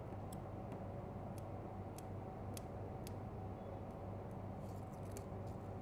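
Light, sharp ticks of metal tweezer tips touching double-sided tape and the iPod battery as the tape is positioned, about ten at uneven intervals over a steady low hum.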